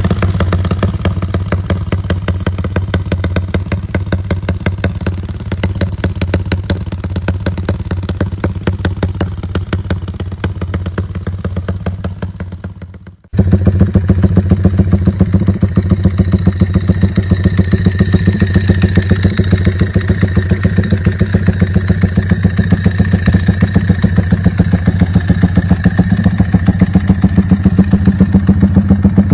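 Modified Yamaha Y15's single-cylinder four-stroke engine idling steadily with an even exhaust pulse. About 13 seconds in, the sound cuts off briefly and comes back louder.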